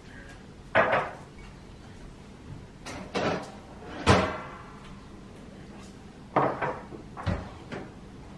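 A mug and other things handled on a desk: a string of separate knocks and clunks, the loudest about four seconds in with a short ring.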